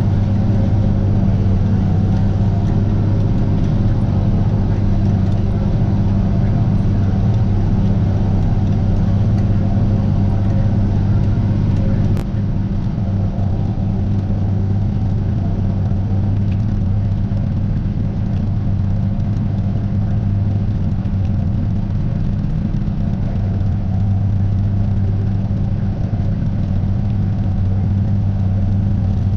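Tractor engine and PTO-driven forage harvester running steadily under load while chopping standing corn, heard from inside the cab. A single click about twelve seconds in, after which the drone is slightly quieter.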